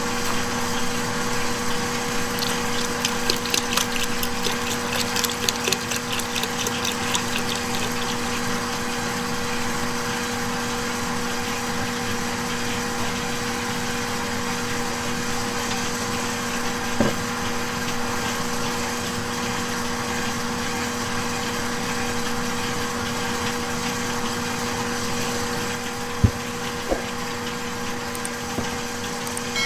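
A steady mechanical hum with a constant pitched drone. Rapid clicking comes a few seconds in, and a few sharp knocks come later.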